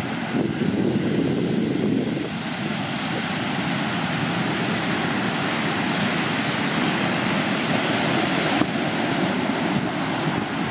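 Rough ocean surf breaking and washing steadily onto the beach, with wind blowing across the microphone.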